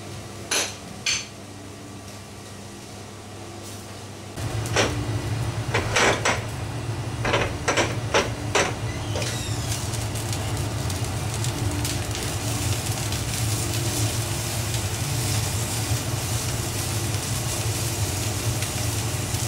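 Lidded stainless steel sauté pan of mussels and cider on a gas burner: a run of sharp metallic knocks and clinks as the lid and pan are handled, then a steady hiss of the pan steaming under its lid over a low rumble from the stove. A couple of small clinks of kitchenware come at the start.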